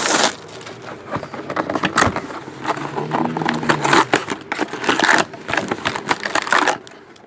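Trading-card packs being torn open and handled: rustling, crinkling and scraping of wrappers and cards in irregular clicks and bursts.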